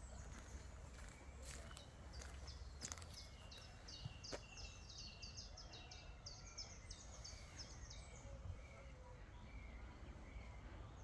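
Faint birdsong outdoors: one bird gives a long, fast series of short high chirps from about two seconds in until near eight seconds, with a few soft clicks and a low steady background hum.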